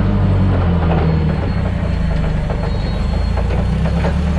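Forklift engine running steadily under way, heard from the driver's seat, a low drone whose note shifts slightly about a second in, with some light rattles and clicks.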